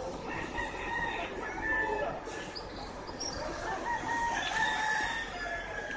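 Rooster crowing: two long crows, the first near the start and the second beginning a little past the middle.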